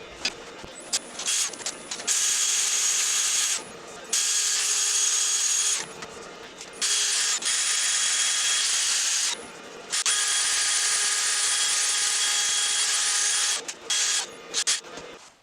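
Handheld power drill motor running at a steady high whine in bursts: a few quick trigger blips, then runs of two to four seconds that stop and start again several times.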